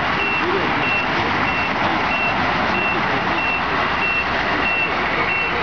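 Reversing beeper of a radio-controlled model semi truck, short high beeps repeating evenly about three times every two seconds as the truck backs up. A steady background of noise and faint voices runs beneath it.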